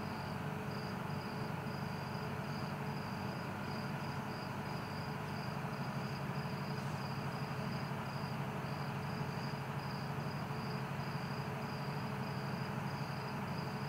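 A cricket chirping steadily in a regular high pulse, about two chirps a second, over a low steady hum of background noise.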